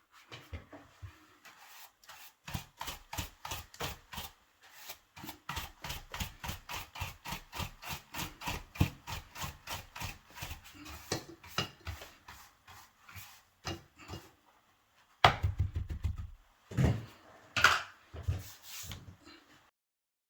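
Rhythmic scraping or rasping strokes, about three a second, like a hand tool worked back and forth. A few louder scrapes and knocks come near the end.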